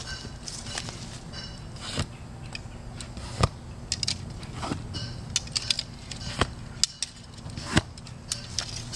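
A dozen or so sharp clicks and knocks at irregular intervals, some with a short ringing tail and the loudest about three and a half seconds in, over a steady low hum.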